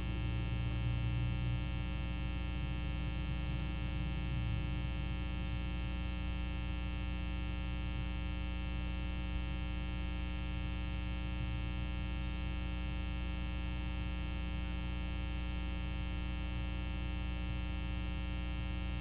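Steady electrical hum and buzz with many overtones, from the nest camera's microphone feed, with a slight low swell about a second in.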